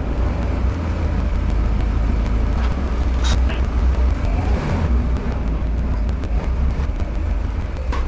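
A car running, a loud steady low rumble with road and wind noise over it.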